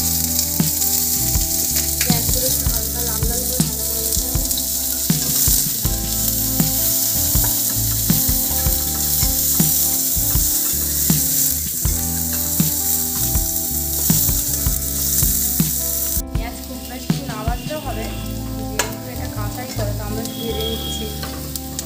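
Chopped onions sizzling as they fry in hot oil in a non-stick kadai, with the spatula clicking and scraping against the pan as they are stirred. The sizzle turns abruptly softer about sixteen seconds in.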